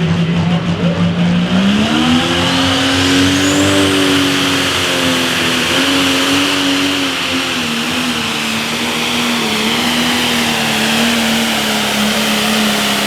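Turbocharged diesel of a John Deere Pro Stock pulling tractor running hard. The engine rises in pitch about two seconds in and holds high, sagging slightly near the end, while a high turbo whine climbs at the same time.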